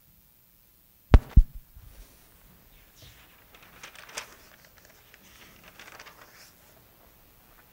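Two sharp knocks about a quarter second apart, followed by faint rustling and a few light clicks.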